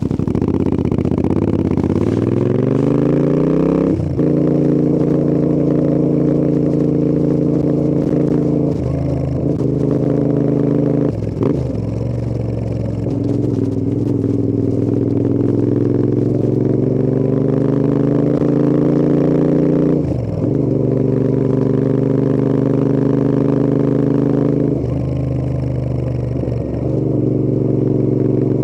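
Royal Enfield Interceptor 650's 648 cc parallel-twin engine and exhaust under way on the road. The revs climb over the first few seconds, then hold fairly steady with slow rises. The note drops out briefly several times, as at gear changes.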